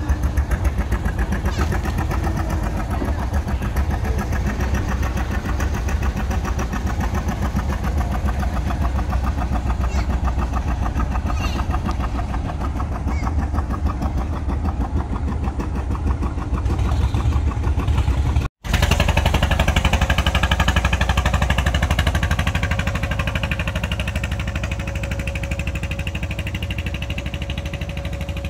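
Small wooden fishing boat's inboard engine running steadily close by, a fast, even beat. The sound drops out for an instant about two-thirds of the way through, and after that a steady whine rides over the engine.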